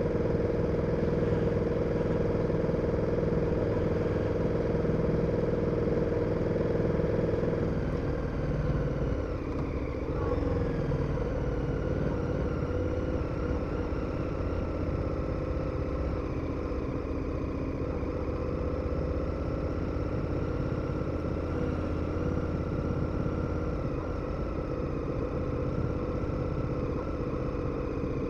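KTM 1290 Super Adventure's V-twin engine running steadily under way. About eight seconds in its note dips and changes, then it settles into a steady note again.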